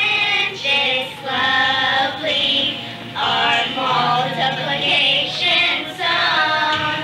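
Young girls singing a song together in short sung phrases, with brief breaks between the lines.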